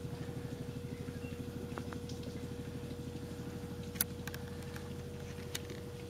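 An engine running steadily, its low pulsing beat at roughly ten pulses a second, with a sharp click about four seconds in.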